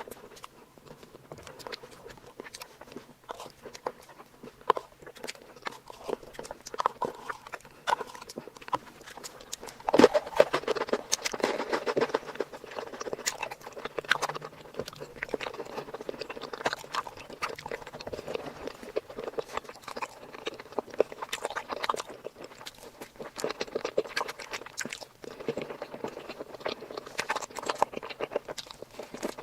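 Close-miked eating sounds of someone chewing sweets: soft wet mouth clicks and smacks. A sharp click comes about ten seconds in, and after it the chewing is louder and denser.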